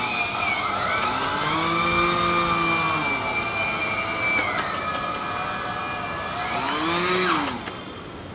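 Home-made airboat's small electric motor spinning its air propeller, a whine whose pitch rises, holds and then falls as the speed is changed. It speeds up and slows again briefly near the end, then cuts off.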